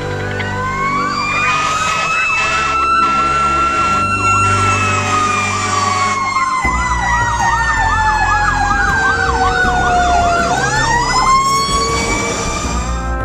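Fire apparatus sirens going together. One long wail rises, falls slowly and rises again near the end. A fast warbling yelp siren runs over it, with a low vehicle rumble beneath.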